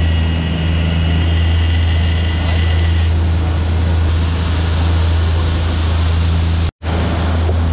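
Sportfishing boat's engines running steadily under way, a loud low drone over the rush of the churning wake. The sound cuts out completely for an instant near the end.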